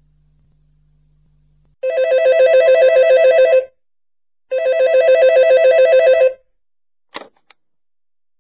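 Telephone ringing twice, each ring a rapid electronic trill lasting just under two seconds, followed by a brief click near the end.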